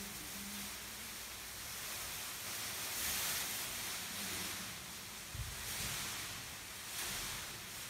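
Crackling rustle of foil emergency survival blankets being shaken and waved, swelling and fading as they are swept through the air, with a soft thump about five and a half seconds in.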